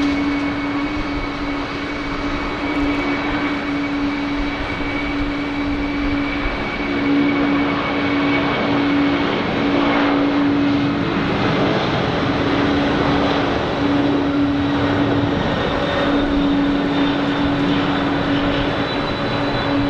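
Boeing 747-400's four jet engines at take-off thrust as the airliner rolls down the runway and lifts off. The engine noise is loud and steady throughout, with a steady low tone running beneath it.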